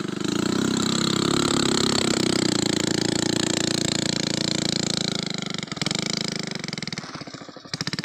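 Motorcycle engine running steadily, then dropping off about six seconds in; after a brief dip near the end it comes back as a fast, even putter.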